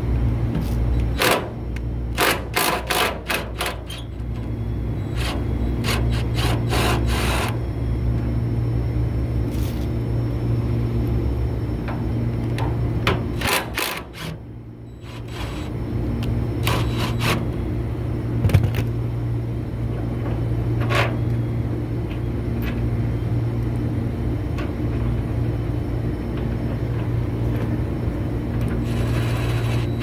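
Cordless DeWalt impact driver working on the blower shaft bearing to loosen it for removal, in short bursts of rapid hammering separated by pauses, over a steady low hum.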